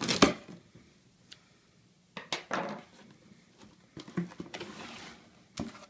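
A cardboard box handled on a wooden table: a sharp clatter at the start as the scissors are put down, then scattered taps and scrapes, and a short rustle of cardboard and packaging as the lid is lifted about four seconds in.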